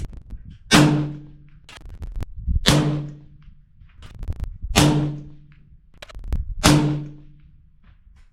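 Four suppressed 6.5 Creedmoor rifle shots, about two seconds apart, each a sharp crack with a short ringing tail.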